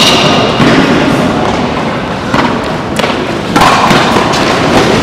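Tennis rally on a hard court: several sharp racket-on-ball hits, one right at the start, about half a second later, and two more near three seconds in, over loud, steady background noise.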